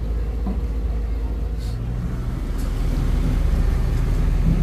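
A motor vehicle's engine running steadily, getting louder about two and a half seconds in.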